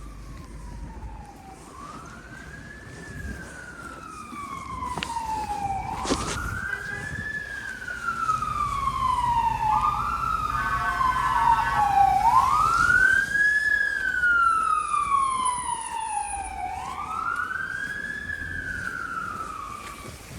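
Emergency vehicle siren on a slow wail, its pitch rising and falling every four to five seconds. It grows louder toward the middle and then fades as it passes. About ten seconds in, a steady horn blares for roughly two seconds.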